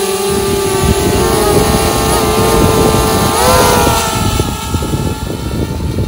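DJI Spark mini drone's four propellers whining in flight, a steady high hum whose pitch wavers up and down a couple of times as it manoeuvres, over a rough, gusty rumble.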